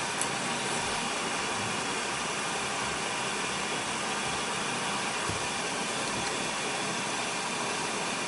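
Steady whirring hiss with faint steady tones, typical of the fans of a powered-on UP! Mini 3D printer. A faint click comes just after the start.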